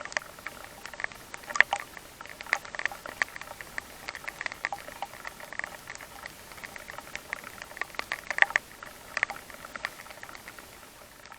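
Water thrown by a 3D-printed rotating garden sprinkler pattering down in many irregular drops and taps over a faint hiss.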